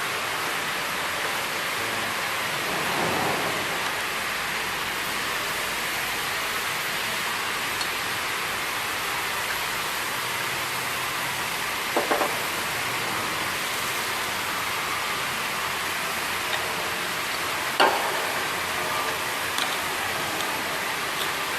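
Steady hissing noise, with a few sharp metallic clicks and knocks, once about twelve seconds in and again near eighteen seconds, as engine parts are handled during a teardown.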